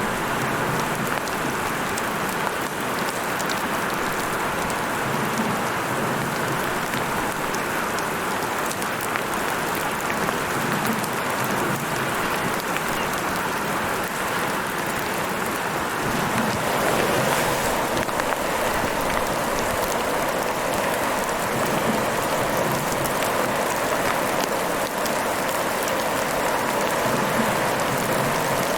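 Heavy rain falling steadily, a dense hiss of drops on a surface with fine patter throughout, growing a little fuller partway through.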